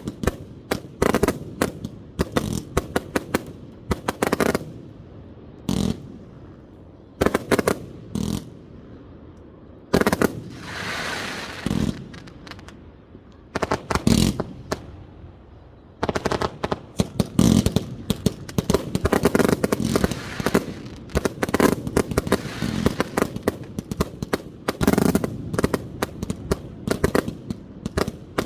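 1.3G display fireworks fired from multi-shot basins: sharp booming reports, at first scattered a few at a time, then from just past halfway a dense rapid barrage of shots. A brief rushing swell rises and fades between reports about ten seconds in.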